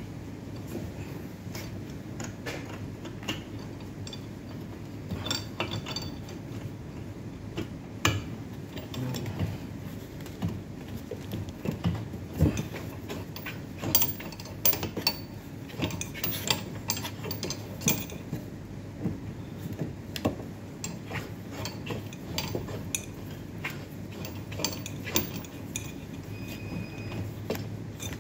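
Irregular clicks, clinks and rattles of hands working on the internal parts and tubing of a Melag 31B autoclave, over a steady low hum.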